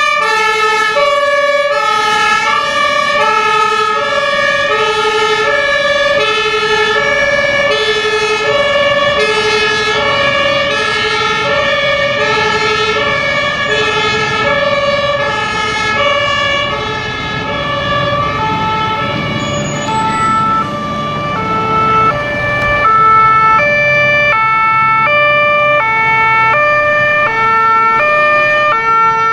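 German two-tone fire-engine horn (Martinhorn) sounding its alternating high-low pattern as fire engines drive off on a call, with engine and road noise underneath. About two-thirds of the way through, a second horn on a different pair of pitches takes over as the next vehicle, a VW Transporter breathing-apparatus van, approaches, and the vehicle noise grows louder.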